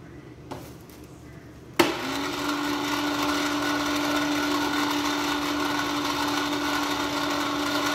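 Toy spin-art and pottery wheel switched on with a sharp click about two seconds in, its small electric motor then whirring at a steady pitch as the turntable spins.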